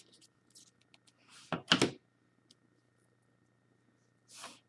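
Hard plastic trading-card holders being handled and set down on a table: a faint click at the start, a pair of sharp knocks about a second and a half in, and a brief soft rustle near the end, over a faint steady electrical hum.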